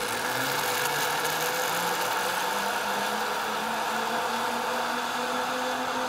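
Zip line trolley pulleys running along a steel cable: a steady whir, with a hum that rises steadily in pitch as the rider picks up speed.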